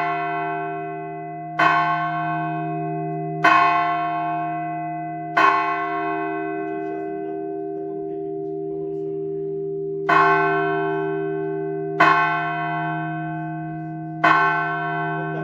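A bell struck by hand six times, roughly every two seconds with one longer pause in the middle. Each stroke rings on and overlaps the next over a steady deep hum.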